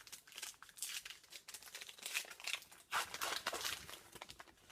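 Plastic wrapper of a 2015-16 O-Pee-Chee hockey card pack crinkling and tearing as it is opened, with a run of irregular rustles that are loudest about two and three seconds in.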